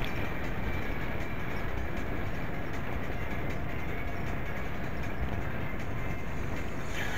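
Steady wind noise and rolling road rumble from a bicycle moving along a paved path, picked up by a small SQ23 action camera mounted on the bike.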